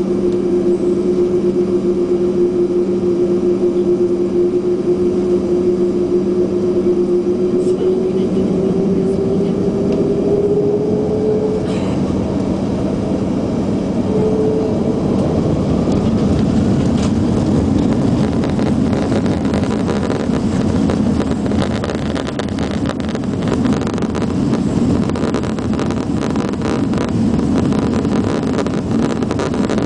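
Airbus A330-300's jet engines heard from inside the cabin: a steady whine that rises in pitch from about eight seconds in as the engines spool up for takeoff, then a growing rumble with rattling as the airliner accelerates down the runway.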